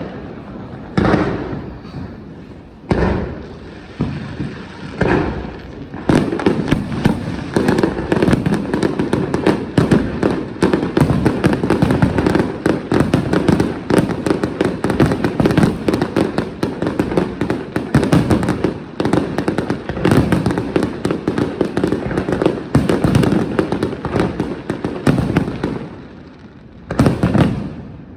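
New Year fireworks display: a few single booms in the first seconds, then from about six seconds a dense barrage of rapid bangs and crackling lasting about twenty seconds, and one more boom near the end.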